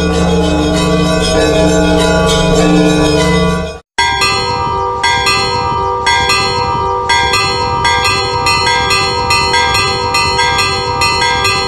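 A short music intro with sustained tones cuts off about four seconds in. Then the church bells of St John the Baptist in Butel ring, a set of bells struck in quick succession, a few strikes a second, their tones overlapping and ringing on.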